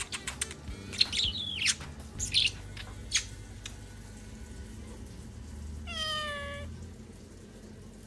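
Budgerigar giving short chirps and clicks, then about six seconds in a cat meows once, a short call falling slightly in pitch.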